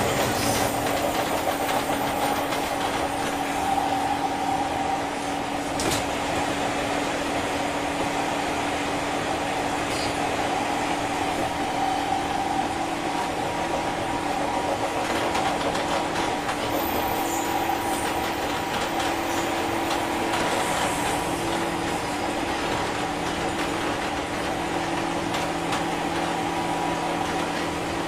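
Interior running sound of a 201 series electric train, heard inside a motor car: steady rail and wheel noise with a constant electrical hum of several tones, and a single click about six seconds in.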